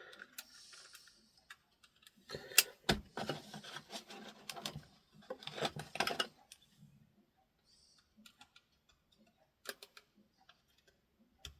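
Clicks, scraping and rattling as the small plastic case of a pocket radio is pried apart with a metal tool, working its clipped-together housing loose. Sharp clicks and scraping come in two stretches in the first half, then only a few scattered ticks.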